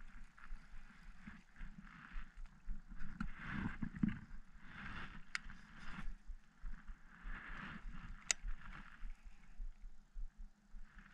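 Baitcasting fishing reel being worked by hand: its gears whir in uneven stretches as line is cranked, with two sharp clicks, one about five seconds in and one about eight seconds in.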